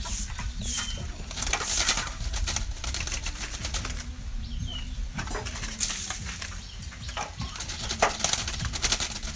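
Caged birds moving about and fluttering in a wire cage: irregular rustles and wing flaps, with a couple of short high chirps.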